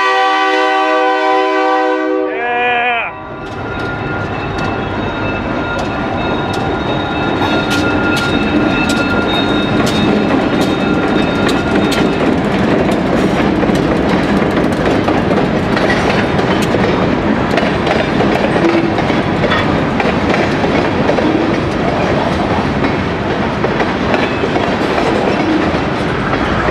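An O gauge model diesel locomotive's electronic horn blows for the first two or three seconds and drops in pitch as it cuts off. The model train then runs along the track with a steady rumble and a string of clicks from the rail joints.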